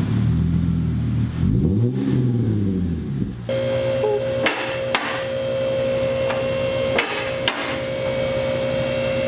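Hyundai Genesis Coupe's 3.8 V6 running through test pipes and a cat-back exhaust, idling and then revving once briefly. About three seconds in, the sound cuts to a steady mechanical hum with several sharp metallic clanks.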